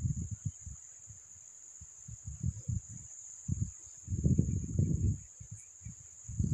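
A steady high-pitched insect drone, broken by irregular low rumbles and thumps on the microphone that are loudest just after the start and again about four to five seconds in.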